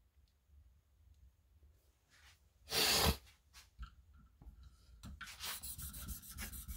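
A loud sniffle about three seconds in. From about five seconds, a 1500-grit stone on a KME guided sharpener begins scraping in short, irregular strokes along the edge of an M390 knife blade.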